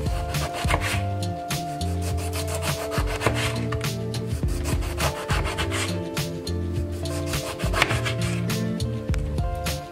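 Kitchen knife sawing through a lemon into slices on a plastic cutting board, a run of short scraping strokes, over background music.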